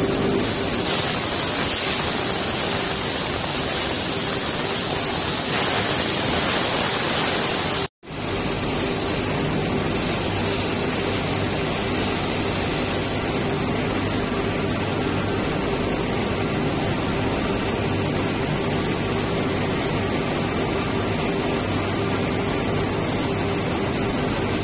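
Steady loud hissing rush of industrial blasting and paint-line equipment, with a steady machine hum under it. The hiss is brightest in the first part, and the sound drops out completely for a moment about eight seconds in before the same steady noise returns.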